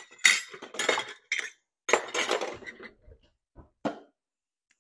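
Kitchen clatter of utensils and measuring cups clinking against dishes and bowls while brown sugar is measured out, in irregular bursts over the first three seconds, then two light clicks.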